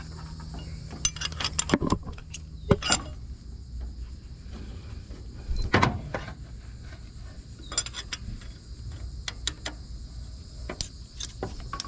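Irregular clicks, clinks and a few sharper knocks of hand tools on metal, the loudest about two, three and six seconds in.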